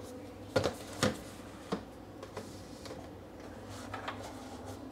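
Light knocks and taps of boxes and small containers being set down and slid onto a kitchen cabinet shelf: three sharp knocks in the first two seconds, then a few fainter taps.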